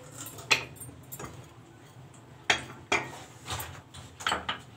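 Kitchen handling sounds at the stove: sharp clicks and clinks of cookware and utensils, one every second or so with a quicker cluster near the end, over a faint low steady hum.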